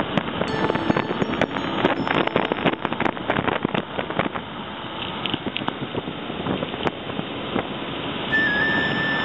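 Noise of a moving vehicle with wind and crackles on the microphone; a steady high whistle-like tone comes in near the end.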